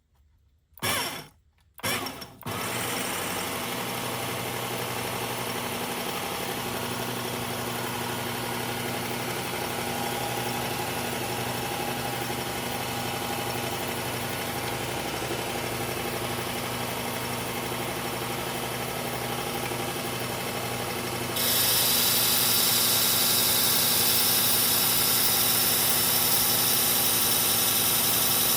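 Electric belt knife sharpener switched on in two short bursts, then running steadily on a new abrasive belt. About 21 seconds in, it gets louder with a strong added hiss.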